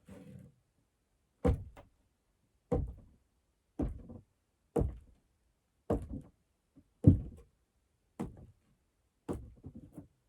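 Foley footsteps: slow, steady walking, about one step a second, each step a heel strike followed by a lighter roll onto the toe.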